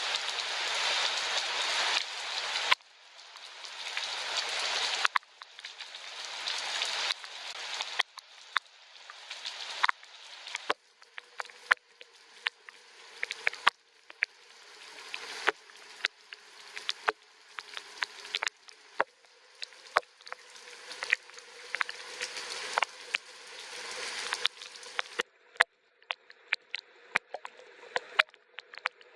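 Rain: a hiss of falling rain with sharp drip taps, swelling over a couple of seconds and then cutting off abruptly, again and again. Near the end the hiss thins out to mostly separate drips.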